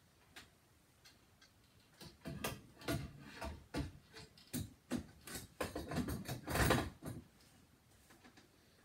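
A quick run of knocks and clicks from about two seconds in, ending with the loudest, a short clatter, near seven seconds.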